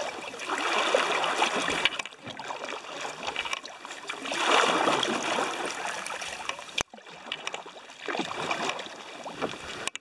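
Kayak paddle strokes swishing and splashing through river water, swelling every few seconds, with one abrupt cut about two-thirds of the way through.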